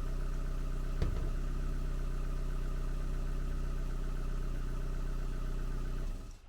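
Warm 1.6 single-cam 8-valve petrol engine of a Vauxhall Astra G idling steadily, with a single sharp click about a second in. Near the end the engine is switched off and the sound dies away.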